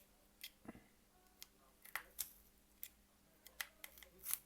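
Faint scattered clicks and light scrapes of small hand tools prying at a smartphone's battery, which is held down by adhesive.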